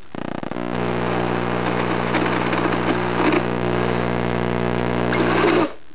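Electric drill running at a steady speed, its 1/4-inch bit boring a magnet hole through a white plastic helmet part. It starts at the very beginning and cuts off shortly before the end.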